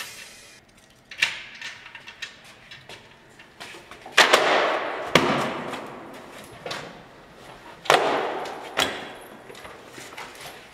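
A series of sharp knocks and thuds. The two loudest come about four and eight seconds in, each trailing off over a second or so.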